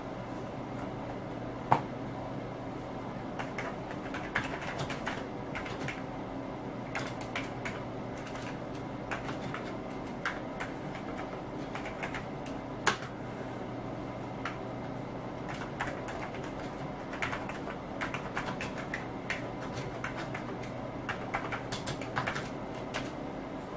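Typing on the Amiga 500's built-in keyboard: irregular runs of keystroke clicks as a chat message is typed out, over a steady low hum.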